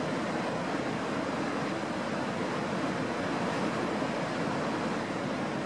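Steady, even roar of a waterfall and rushing white water.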